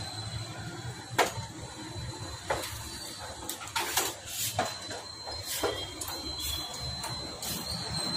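Irregular metal clicks and knocks of hand work on a motorcycle's front fork and handlebar clamps as the fork tubes are fitted, over a steady low hum.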